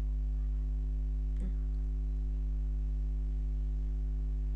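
Steady electrical mains hum with a row of evenly spaced overtones, with one faint click about a second and a half in.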